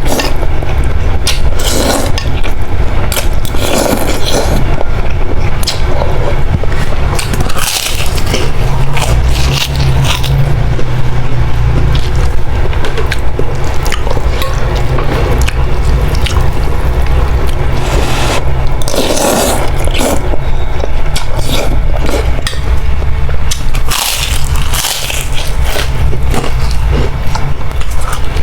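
Close-up eating sounds of instant noodle soup: a spoon or fork scraping the bowl, with repeated short slurps and chewing, over a steady low rumble.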